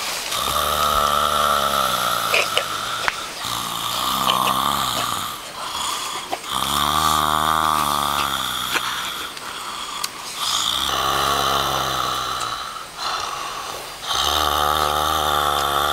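A person snoring: about five long, low snores, each around two seconds, coming every three to four seconds.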